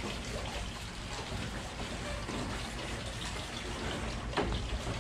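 Hand brush scrubbing a wet boat fender that has been sprayed with bleach cleaner. A steady wet scrubbing hiss, with a few sharper strokes about four seconds in.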